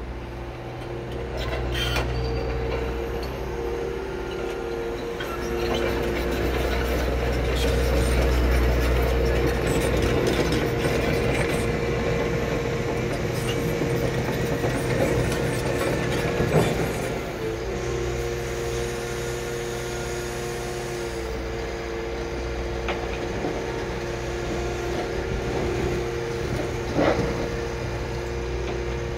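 Liebherr R 936 tracked excavator working: diesel engine running under a steady hydraulic whine, with the clatter of its tracks as it travels and a few sharp clanks.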